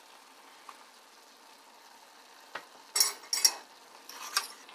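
A spoon scraping and clinking against a saucepan as queso dip is scooped in and stirred into shrimp and broccoli, in a few short strokes about three seconds in and again near the end. Before that, only a faint sizzle from the pan.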